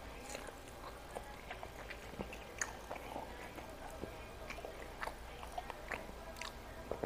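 Close-miked chewing and mouth sounds of a person eating rice and fried food by hand, with many short, sharp clicks scattered throughout.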